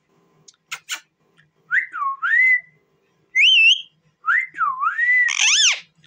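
A rose-ringed parakeet (Indian ringneck) whistling: a string of clear sliding whistles that rise and fall in pitch, ending near the end in a louder, harsher wavering whistle. A couple of short clicks come about a second in.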